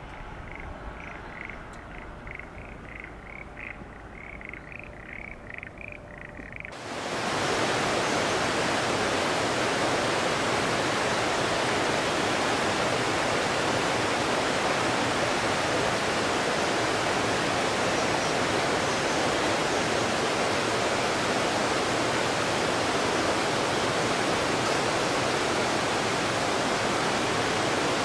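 A faint run of short, chirping animal calls, several a second, then about seven seconds in a sudden cut to a loud, steady rush of running water that lasts to the end.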